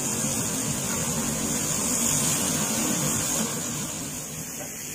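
Steady rushing roar of a tall flambé flare-up over a flat-top grill, easing off about three and a half seconds in.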